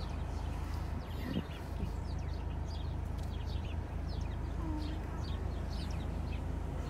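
Small birds chirping over and over, in quick short calls, over the steady low hum of an idling car engine.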